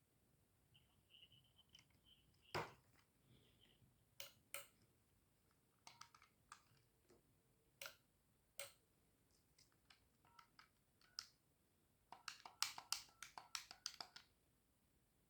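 Quiet clicks of a landline phone's plastic keypad buttons being pressed, a number being dialled: scattered single presses, then a quick run of about a dozen presses near the end.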